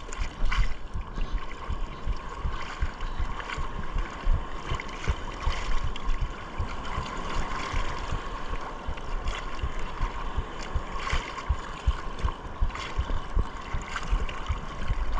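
Shallow sea water sloshing and splashing around a wading angler, with wind buffeting the microphone in frequent low thumps.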